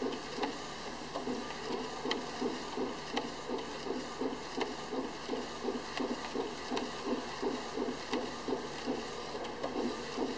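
A4 UV flatbed printer printing: the print-head carriage shuttles back and forth on its rail, giving an even mechanical pulse about three times a second over a steady hum, with faint ticks.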